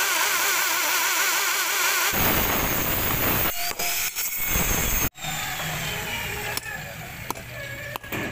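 Electric drill boring into concrete, its motor whine wavering in pitch and then turning rougher as the bit bites. In the last few seconds a hammer strikes about three times, driving steel round bars into the drilled holes.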